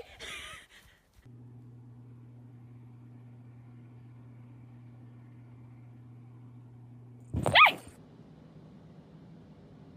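A dog gives one short, loud bark that rises in pitch about seven and a half seconds in, over a steady low hum.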